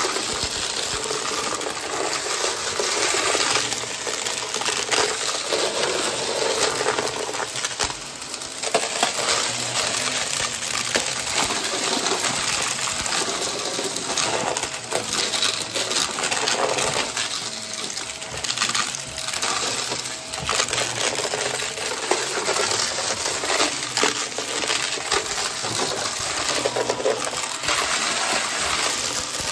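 Close-up ASMR trigger sounds: a dense, continuous run of small clicks and rattles from small hard objects.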